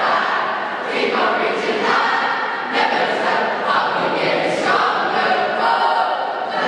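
A large group of teenage voices singing and chanting together in unison, in short phrases about a second apart.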